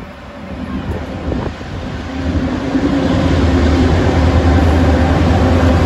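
B-class diesel locomotive, its EMD two-stroke engine running with a steady low drone as it approaches, growing louder from about two seconds in.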